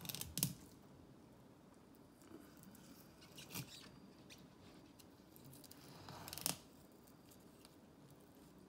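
Fillet knife cutting through a crappie's flesh and skin on a plastic cutting board, heard as three short cuts: one at the start, one about three and a half seconds in, and one about six and a half seconds in.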